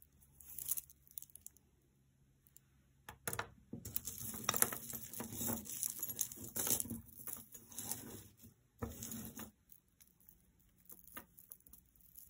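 Jewelry being sorted through by hand: a dense run of rustling with small clicks and clinks as beads, stones and chains knock together, loudest in the middle, then a few scattered clicks.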